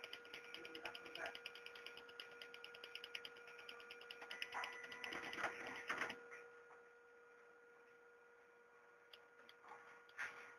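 Fast, even mechanical ticking over a steady electrical hum, stopping suddenly about six seconds in; after that, low hum with a few separate clicks near the end.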